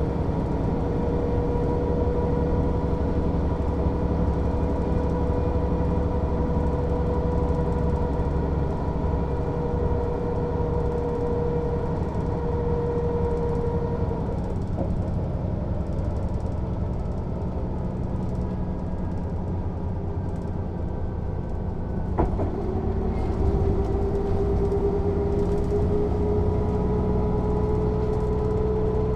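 1993 Mercedes-Benz O 407 city bus heard from on board while driving, with a steady running noise and a high whine. The whine fades out about halfway through, a sharp click comes a few seconds later, and the whine then returns, slowly rising in pitch.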